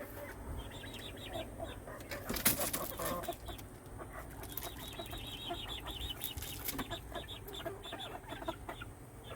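Roosting chickens clucking softly, with a few brief rustles or knocks around two to three seconds in.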